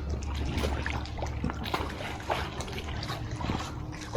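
Swimming-pool water sloshing and splashing in many small, quick splashes and trickles, churned up by a person making waves.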